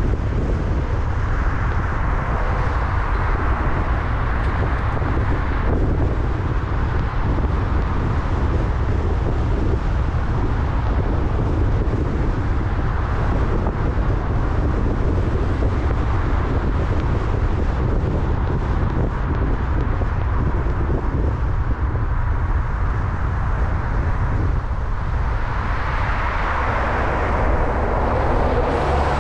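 Car driving on city streets: a steady low rumble of tyre and road noise with wind buffeting the microphone, the hiss swelling near the end.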